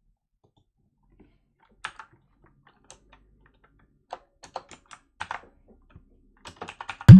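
Typing on a computer keyboard: scattered keystrokes, then quicker runs of clicks, ending in one much louder thump near the end.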